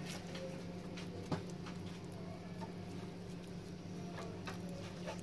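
Faint soft squelches and clicks of oiled dough being pinched off by hand and rolled into small balls, over a steady low hum.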